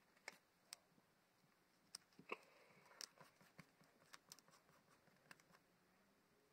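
Faint handling sounds: gloved hands sliding and pressing paper pattern pieces onto a plywood sheet, with soft rustles and a dozen or so light, scattered taps.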